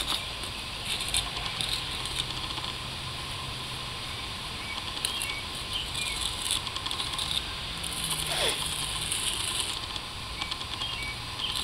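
Metal hand trowel scraping and clicking soil off the face of a flat stone grave marker, in irregular short strokes. One brief falling tone about eight and a half seconds in.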